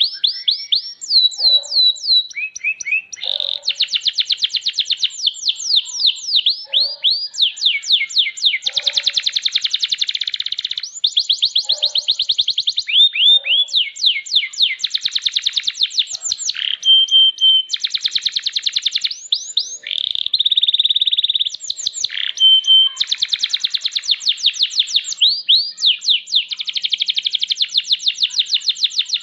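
Domestic canary singing a long, continuous song of fast rolling trills and runs of quick falling notes, broken by a few held whistled notes and a buzzy held note in the middle.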